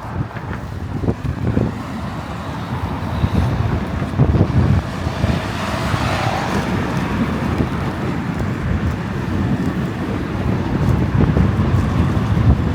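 Road traffic passing, with a steady rumble of cars and one vehicle swelling past about halfway through. Wind gusts on the microphone make the low end surge unevenly.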